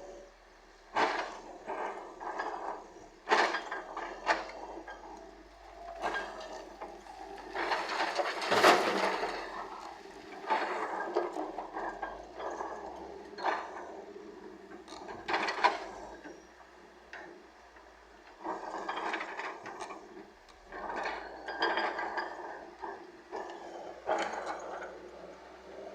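Steel bucket of earthmoving machinery clanking as it digs and dumps murram. Irregular metal knocks alternate with short rattling pours of gravelly soil, the loudest pour about eight to nine seconds in.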